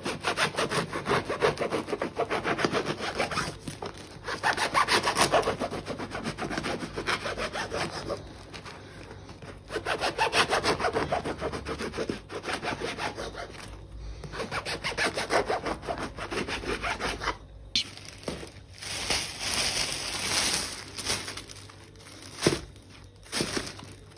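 A knife sawing through crusty loaves of bread on a plastic cutting board, in bouts of quick back-and-forth strokes with short pauses between loaves. Near the end the cut pieces are handled and dropped into a rustling plastic bag.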